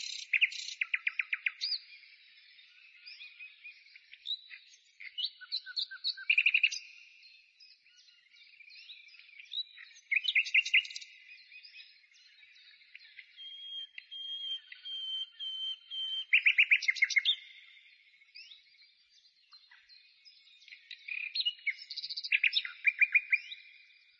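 A songbird singing: bursts of quick repeated chirps and trills with pauses of a few seconds between them, and a long steady whistle around the middle.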